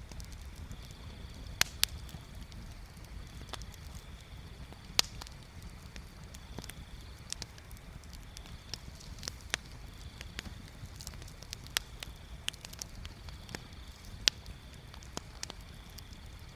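Wood bonfire crackling: sharp, irregular pops and snaps, a few of them loud, over a steady low rumble. A faint high trill comes and goes every second or so.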